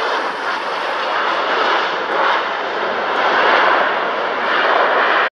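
Boeing 737 airliner's jet engines running loud just after touchdown on the runway, a steady rushing roar that swells about three seconds in, then cuts off abruptly near the end.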